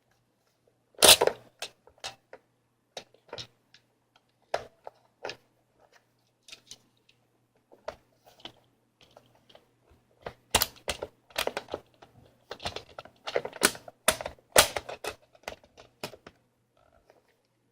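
Irregular clicks and knocks of plastic parts of an electric airsoft gun being handled and pushed into place while its back cover is refitted. The loudest knock comes about a second in, and a quicker run of clicks follows about ten seconds in.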